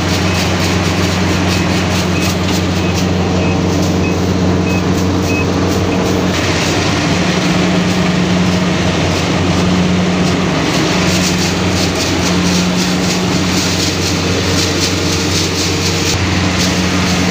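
Kubota DC70 combine harvester running steadily under load, its engine hum and threshing machinery mixed into one continuous drone. A faint high beep repeats about every half second during the first five seconds.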